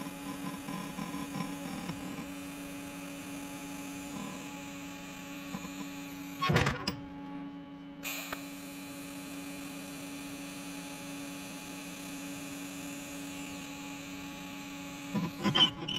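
TIG welder humming steadily, with short loud bursts of arc noise about six and a half seconds in and again just before the end, as the torch strikes brief arcs to braze bronze onto the steel letters.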